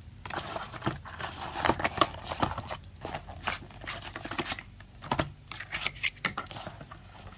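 Packaging being handled: irregular rustling and crinkling with many small clicks and taps as carbon crossbow bolts are worked out of their box.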